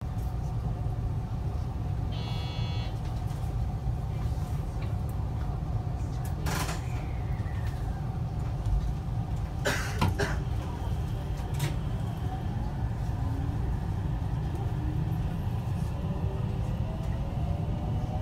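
Electric train's steady low hum while standing at a platform, with a short electronic tone about two seconds in and a few sharp clunks around six and ten seconds. From about twelve seconds the traction motors start a slowly rising whine as the train begins to pull away.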